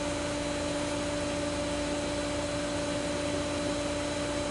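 A steady machine hum over a constant hiss, with two even tones and no change in level.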